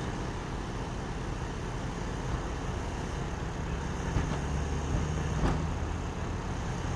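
Steady drone of an engine running, with a low rumble that swells about four seconds in and a few light knocks.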